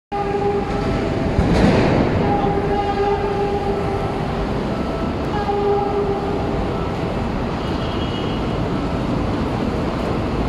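Diesel-electric locomotive DEL 921 sounding its horn in three blasts as it approaches: a short one at the start, a longer one of about a second, and a shorter one, over a steady rumbling background. A brief burst of noise comes about a second and a half in.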